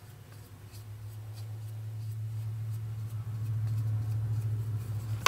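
A flat brush stroking wood varnish across a square wooden decoupage coaster: faint repeated scratching strokes. Under it a steady low hum grows louder, and a sharp click lands at the very end.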